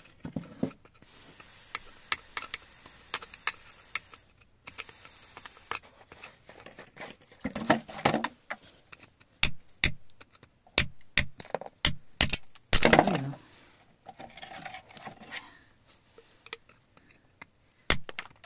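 A flat-bladed metal pry tool scraping and digging into wet, gritty rock around embedded agate nodules: irregular clicks and scrapes of steel on stone. A hissing scrape runs from about one to four seconds in, and there are louder knocks around eight and thirteen seconds.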